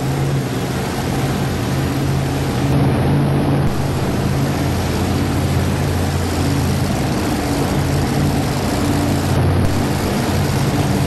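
A supercharged 2WD pulling truck's engine running at a steady low idle as the truck rolls slowly onto the track, its pitch shifting slightly now and then.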